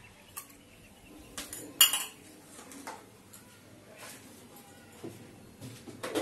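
A few scattered clinks and knocks of kitchen dishes and utensils over a quiet background, the sharpest, ringing clink a little under two seconds in.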